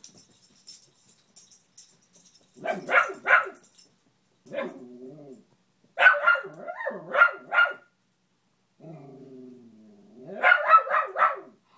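Beagle barking in short groups at a fallen lamp it is wary of: two barks, then four, then a quick run of about five near the end. Between the groups come two lower, drawn-out growls.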